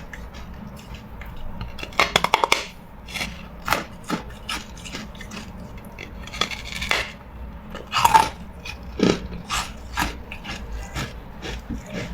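Carbonated ice being bitten and chewed: a quick run of crackling crunches about two seconds in, then separate crisp crunches every half second or so as the brittle, bubble-filled ice breaks between the teeth.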